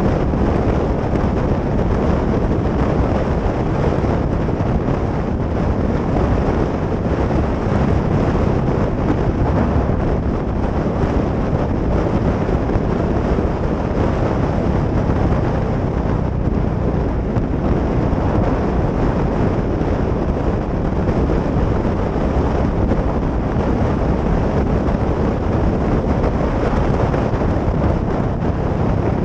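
Steady wind roar over a helmet-mounted camera at road speed, with the Yamaha XT660X's single-cylinder engine running underneath at an even cruise.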